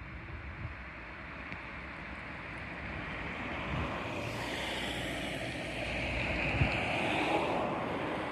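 A vehicle passing: a rushing noise that swells over several seconds, is loudest about seven seconds in, and then starts to fade.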